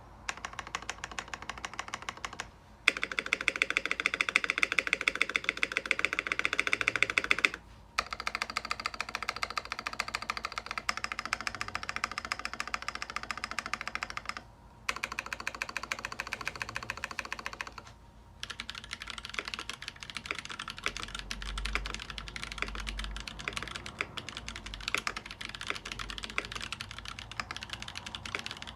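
Mechanical keyboard with Drop Holy Panda tactile switches on an aluminium plate, with lubed stabilizers, being typed on fast: dense runs of key clacks broken by brief pauses, with one run louder than the others.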